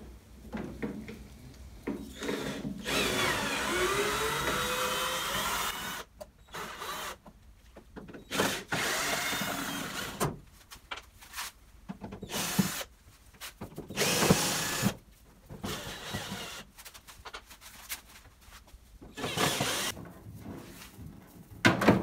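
Cordless drill-driver running in several separate bursts as screws are backed out of a wooden kitchen hood to take it apart; the longest run lasts about three seconds, a few seconds in, with shorter ones later. Clicks and knocks from handling the hood's parts fall between the bursts.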